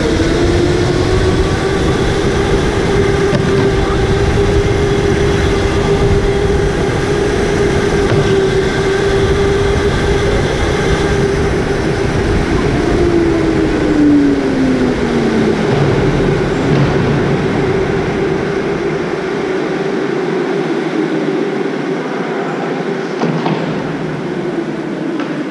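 Electric go-kart motor whining at a steady high pitch at racing speed over low road rumble. A second kart's whine drops in pitch partway through. Near the end the rumble fades and the sound eases off as the kart slows.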